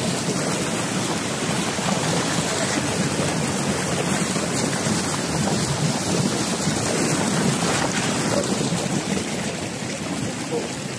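Mountain stream rushing and splashing over rocks in a small white-water cascade, a steady rush of water heard close up.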